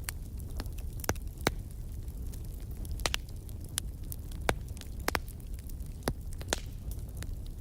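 Fire burning in a fireplace: irregular sharp crackles and pops over a steady low rumble of the flames.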